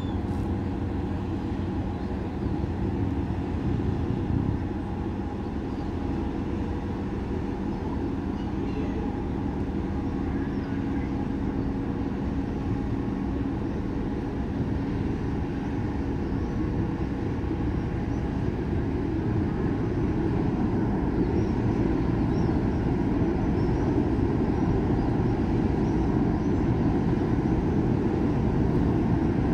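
Large cruise ship's engines and machinery running with a steady low rumble and hum as it moves slowly past, growing a little louder in the second half.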